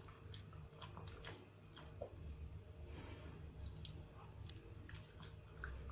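Pekingese dog chewing a milk biscuit treat: faint, irregular crunches and clicks.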